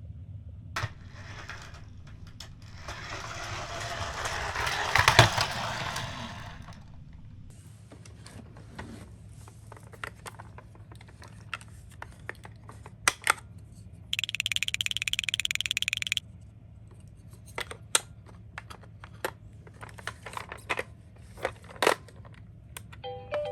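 Toy miniature cars clicking and clattering as they are handled, with a rolling, scraping sweep that swells and fades a few seconds in. A buzzing tone lasts about two seconds midway.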